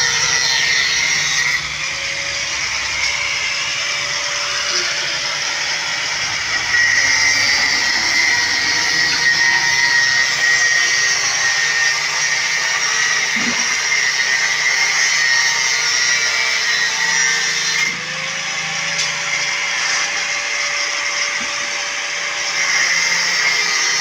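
Angle grinder with an abrasive disc cutting through steel reinforcing bar, a continuous high grinding whine. The motor's pitch and loudness shift a few times as the disc bites into the steel and eases off.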